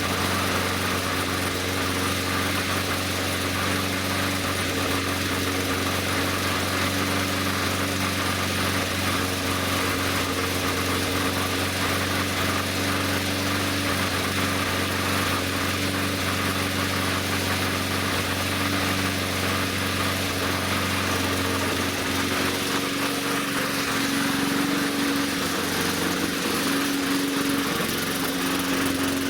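Small gasoline engine running steadily; about 22 seconds in its low note drops away and its pitch rises a little. It is burning off a lot of oil in the combustion chamber and running rough, which the owner puts down to worn piston rings.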